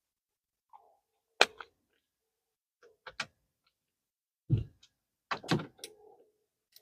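Sharp clicks and knocks of a trailer door lock mechanism being pried at and shifted with a screwdriver, in irregular small groups, one with a duller thump about halfway through.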